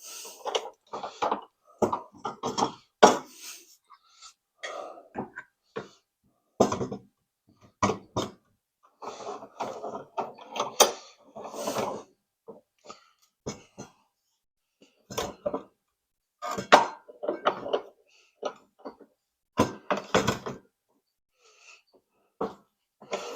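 Hammer blows ringing on a long nail pressed against a rubber bushing in a steel motor cradle clamped in a vise, struck irregularly, sometimes singly and sometimes in quick runs. The bushing is being driven out and does not budge.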